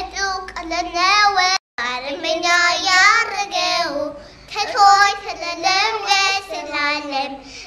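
Young girls singing an Ethiopian Orthodox mezmur (hymn) unaccompanied, in wavering child voices. The sound cuts out completely for a split second about one and a half seconds in.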